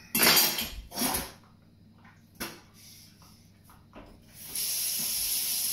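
A mouthful of food being spat into a kitchen sink, two sharp spits in the first second or so. A tap then runs into the sink with a steady hiss from near the end.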